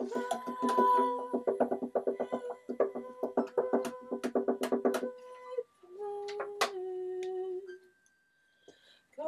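Violin plucked guitar-style in quick repeated notes, about five a second, for about five seconds. Then come a few longer ringing notes, and the playing stops about a second before the end.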